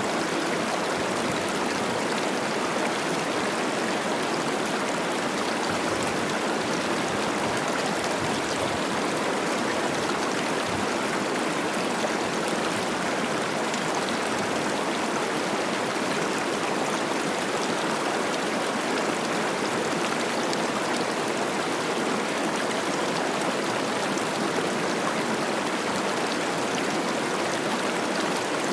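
A mountain river, the Cache la Poudre, running high and fast with spring snowmelt: a steady, unbroken rush of babbling water.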